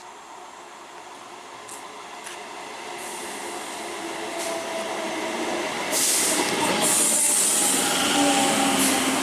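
Electric multiple unit local train growing steadily louder, its traction motors humming over wheel-on-rail noise, with a few clicks early on and a burst of high hiss about six seconds in.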